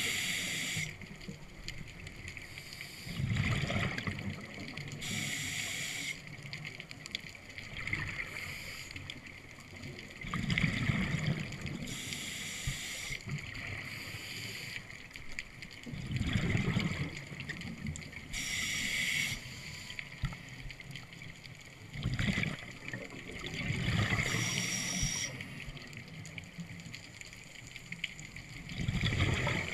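Scuba diver breathing through a regulator underwater, about once every six seconds: each breath is a hissing inhale through the demand valve, followed by a gurgling rush of exhaled bubbles.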